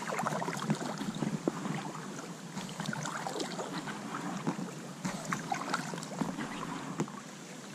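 Kayak paddling: a double-bladed paddle dipping in on alternate sides, with splashing and water dripping off the blades, and many small irregular ticks and knocks.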